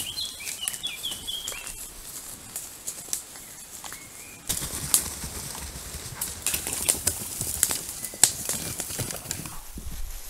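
A small bird chirping a few quick, high notes, then, from about four and a half seconds in, a run of sharp crackles and rustles as brown bears walk through leafy forest undergrowth.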